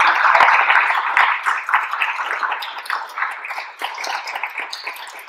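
Audience applauding at the close of a talk. The clapping fades steadily, thinning to a few scattered claps near the end.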